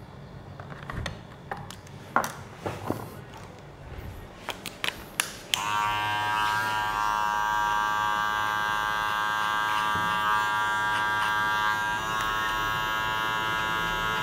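A few scattered clicks and taps, then about five and a half seconds in an electric hair clipper switches on and runs with a steady high buzz.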